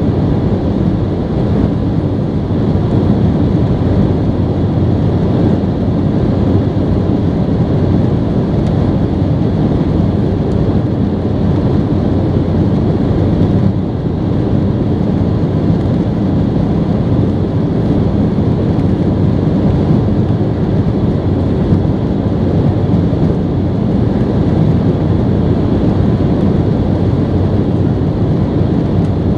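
Steady cabin noise of an Embraer E190 in flight: the rush of its GE CF34 turbofan engines and the airflow past the fuselage, heard from inside the cabin, with a faint steady whine.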